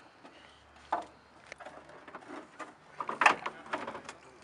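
Scattered light clicks and knocks, with a quick run of them about three seconds in.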